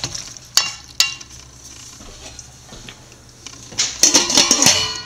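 A wooden spatula knocks twice against a stainless-steel pot. Near the end a steel lid clatters down onto the pot and rings on.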